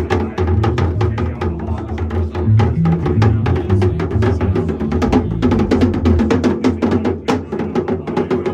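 Live band playing, with a drum kit keeping a fast, steady beat over shifting low bass notes.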